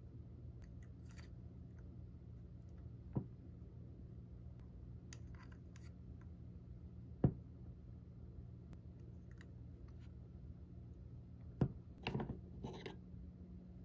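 A few separate sharp clicks and taps as a small ball-jointed doll is handled, with a short run of scraping clicks near the end, over a low steady hum.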